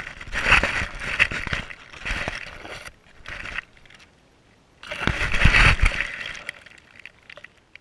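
Wind gusting over a GoPro Hero 3+ microphone, a loud buffeting rush in three bursts, the last dying away about six seconds in.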